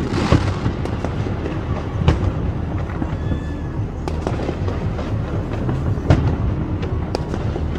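Aerial fireworks shells bursting, sharp booms about two seconds apart, the loudest about six seconds in, over a steady low rumble.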